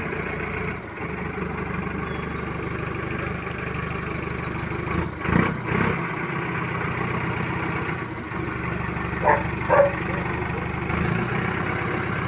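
Vehicle engine running steadily, with a louder burst about five seconds in and two short, sharp sounds about nine and ten seconds in.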